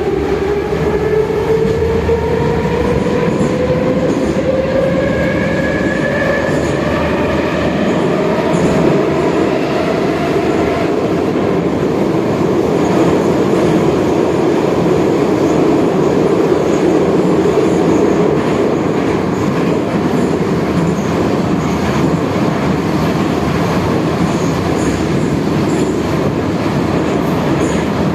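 Metro train running between stations: the traction motors give a rising whine of several tones as the train picks up speed over the first ten seconds or so. After that comes the steady running noise of wheels on rails.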